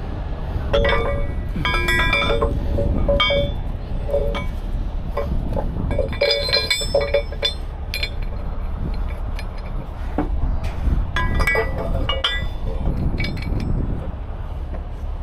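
Heavy steel rigging hardware (shackles, a master link and wire-rope winch hooks) clinking and ringing as it is handled and fitted together. It comes in several clusters of clinks, around one to three seconds in, again around six to seven seconds, and around eleven to thirteen seconds, over a steady low rumble.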